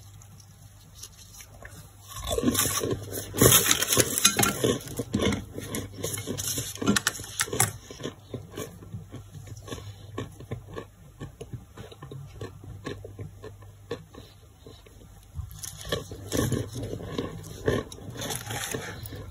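Chalky, crumbly chunks of boiled brick crunching and crumbling as they are broken. A dense run of crackly crunches starts about two seconds in, fades to lighter crackles, and grows louder again near the end.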